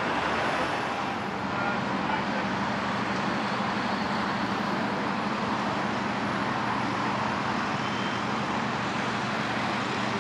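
Steady city street traffic noise, with a low engine hum running underneath.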